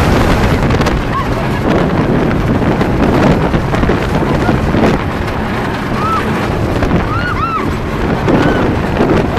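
Heavy wind buffeting the microphone over the steady rumble of a wooden roller coaster train running along its track, with a few short high squeals about six to seven and a half seconds in.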